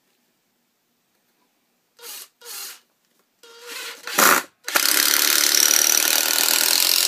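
Makita LXDT06 cordless impact driver driving a 3-inch screw: a few short bursts of the motor spinning, then about two and a half seconds of loud, continuous rapid hammering as the impact mechanism engages under load, stopping near the end.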